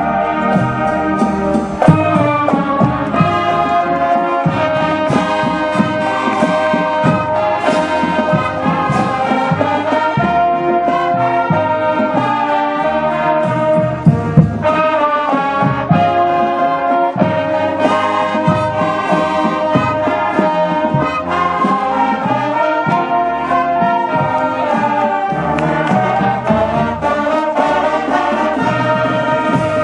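Marching band playing as it passes in a parade: brass melody led by trombones and trumpets, with drum beats.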